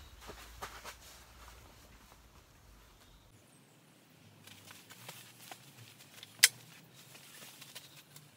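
Faint knocks and scrapes of a wooden frame of old pallet wood being gripped and turned by hand, with one sharp wooden knock about six and a half seconds in.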